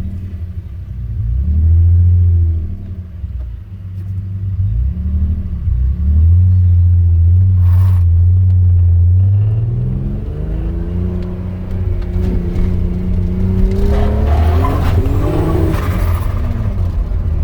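Turbocharged VR6 engine heard from inside the car, running at low revs, then accelerating about ten seconds in with its pitch rising, and pulling up again near fifteen seconds. A short click sounds near the middle.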